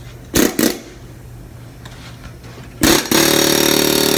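Pneumatic air hammer (air chisel) driving against a wheel hub to free it from the brake rotor: two short blips about half a second in, then a brief burst near three seconds and a continuous fast hammering run to the end.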